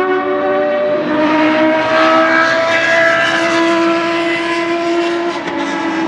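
The Ford Cosworth DFL V8 of a Tiga GC289 Group C2 race car running hard, its pitch climbing steadily as the car accelerates and dropping a little after five seconds in.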